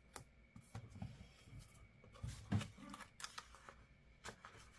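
Faint rustling and small clicks of paper stickers being handled and pressed onto a journal page, with a soft low bump about halfway through.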